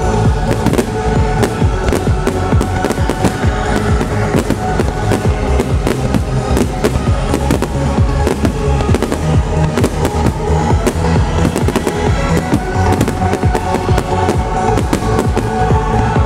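Aerial fireworks shells bursting in a rapid, continuous barrage of bangs and crackles, over loud electronic trance music with sustained synth tones and a heavy bass beat played through loudspeakers.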